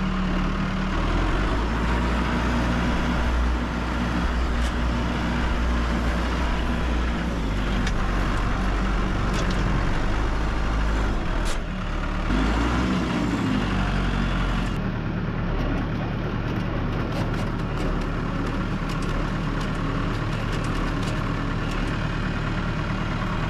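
Diesel tractor engine running steadily while working, with scattered knocks and rattles.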